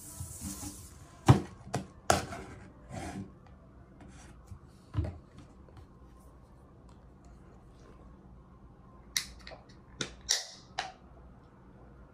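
A knife point pierces the side of an aluminium beer can, and carbonation gas hisses briefly out of the hole. Sharp knocks and clicks follow as the knife and the can are handled on a wooden table, and another cluster of clicks with a short hiss comes near the end.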